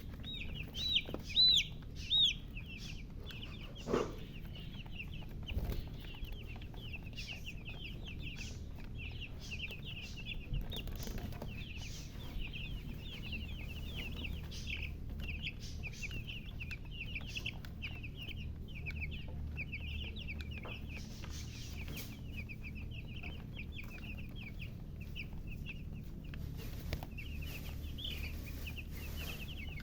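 Baby chicks peeping continuously, a dense stream of short, high-pitched chirps, with a few louder peeps in the first couple of seconds, and a hen's lower cluck now and then.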